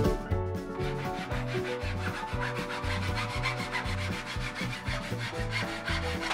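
Hand saw cutting a thin strip of wood in a mitre box: a steady run of rapid back-and-forth strokes. Quieter background music plays underneath.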